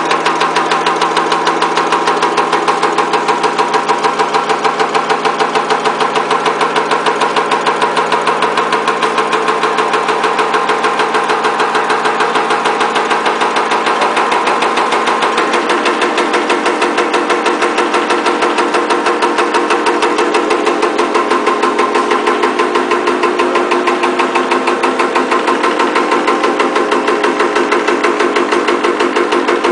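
Power press punching spangles (sequins), running in a fast, even rhythm of strokes over a steady machine hum. The hum shifts slightly in pitch about halfway through.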